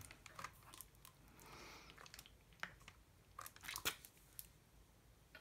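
Faint crinkling and a few soft clicks of wax paper being pressed and smoothed by hand over a wet page.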